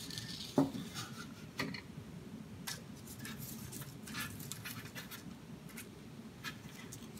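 Faint rustling and scratching of parchment paper on a metal baking sheet as hands lay and curve thin strips of pie dough, with a single light knock about half a second in.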